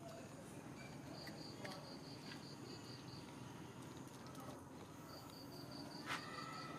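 An insect chirping in runs of short, evenly spaced high-pitched pulses, about five a second, over faint background noise. A single sharp click about six seconds in is the loudest sound.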